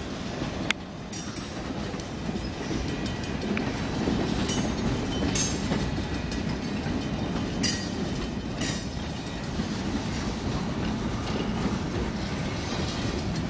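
Freight cars of a passing freight train rolling by at speed: a steady rumble of wheels on rail, with a few short, harsh noises standing out about four to nine seconds in.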